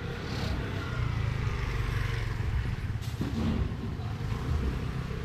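Motor vehicle noise on a street: a steady low rumble.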